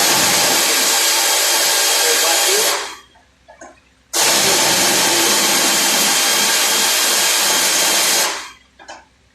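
Compressed air hissing out of an air tool in two long blasts, the first about three seconds and the second about four, with a short pause between.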